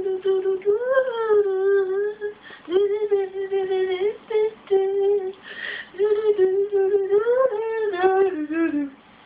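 A person humming a wordless tune in long held notes that rise and fall, ending in a few falling steps.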